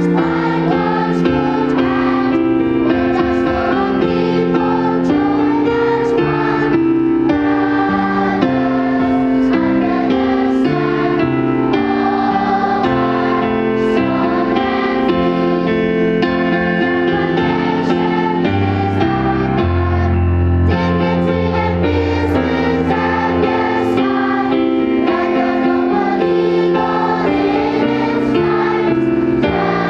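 Music: a choir singing over instrumental accompaniment.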